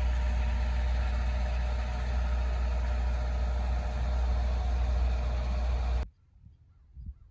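Sailboat's inboard engine running steadily under way, a constant low rumble. It cuts off abruptly about six seconds in, leaving near quiet with a few faint low thumps.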